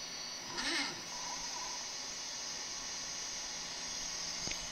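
Small stepper motors of a homemade mini CNC laser engraver running over a steady hiss. Just under a second in there is a brief whir that rises and then falls in pitch as an axis moves quickly, and there is a single click near the end.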